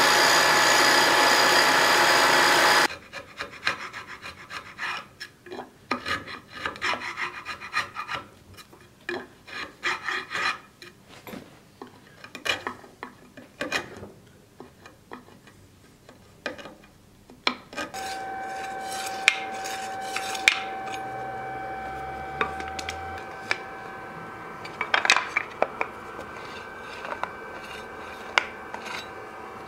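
Milling machine running with its end mill cutting a groove in a wooden board, stopping abruptly about three seconds in. Then a hand gouge carves the wooden groove in irregular scraping strokes. From about eighteen seconds a steady machine hum comes in under repeated scraping strokes of a metal blade drawn along the wooden board.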